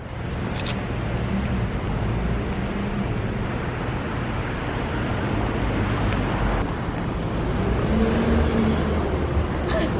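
Steady low rumble of vehicle noise, with a sharp click about half a second in and another near the end.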